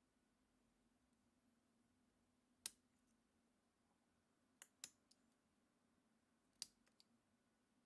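Faint, isolated sharp clicks, a few seconds apart and twice in quick pairs, over a faint steady low hum.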